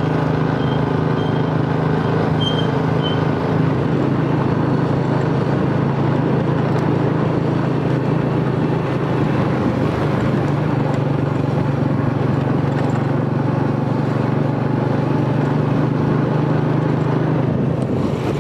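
Small motorcycle engine running at a steady, even pace while riding, heard from the bike itself, under a steady rush of wind and road noise.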